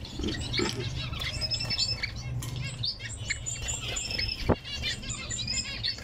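Several cage finches chirping and calling over and over, with a steady low hum underneath and a single sharp click about four and a half seconds in.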